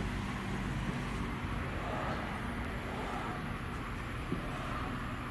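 Steady low engine-like hum under even outdoor background noise, with one faint click about four seconds in.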